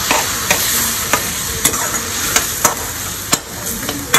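Capsicum and onion pieces sizzling in sauce in a metal wok while a perforated metal spatula stirs them, clicking and scraping against the pan about twice a second.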